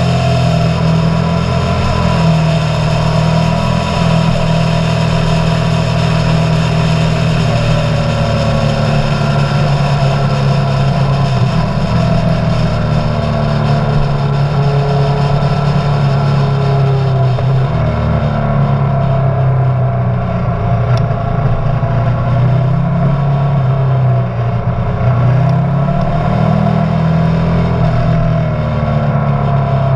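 Motorcycle engine running steadily under way, its pitch dipping and climbing back a few times in the second half.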